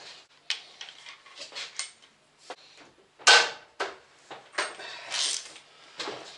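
Irregular metal clinks, knocks and short scrapes of tools and the old square-taper bottom bracket cartridge being worked out of a bicycle frame, the loudest knock about three seconds in.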